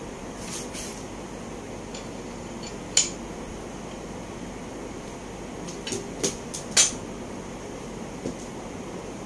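Metal clinks and knocks of an IKEA ADDE chair's steel tube leg frame being handled and fitted to its seat: one sharp clink about three seconds in, a quick cluster a little past halfway with the loudest of all, and a faint one near the end, over a steady background hum.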